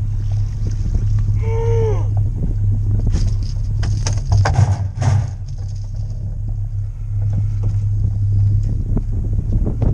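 A boat's motor running steadily, with a brief whine that rises and falls about a second and a half in, and a spell of knocks and clatter from handling gear around the middle.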